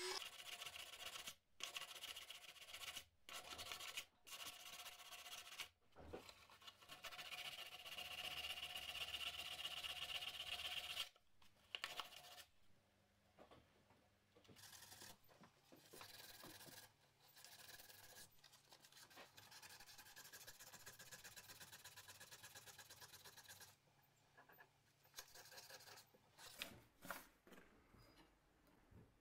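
Steel hammer head in a bench vise being hand-sanded with an abrasive sponge: a steady scratchy rubbing, broken by a few short gaps, for about the first eleven seconds, then much fainter rubbing. A few light clicks come near the end as the head is handled in the vise.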